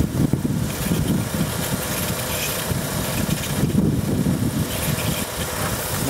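Jeep Grand Cherokee's 3.7-litre V6 idling, with a steady hiss of air drawn in at the EGR tube. The hiss is a vacuum leak, which the technician puts down to some kind of O-ring in the tube, and it is raising the idle speed.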